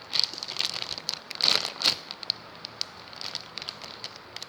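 Plastic squishy packaging crinkling and crackling as it is handled, with short crisp rustles that are busiest and loudest about one and a half to two seconds in.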